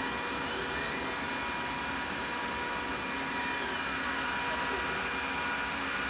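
Glowforge Plus laser cutter running: the steady rush of its cooling fans and the exhaust fan, with several steady hum tones, and a faint whine that rises about half a second in and another that falls away between three and five seconds in as the laser head moves.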